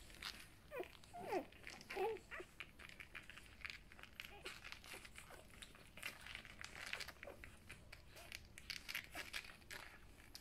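Newborn golden retriever puppies suckling at their mother: faint, rapid wet clicking and smacking, with a few short squeaks from the pups in the first two seconds.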